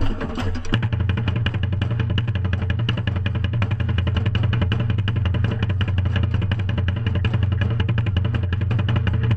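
Marching band drumline playing a long, rapid roll over a held low note, heard close up from beside a bass drum. The steady low rumble sets in under a second in and holds unbroken.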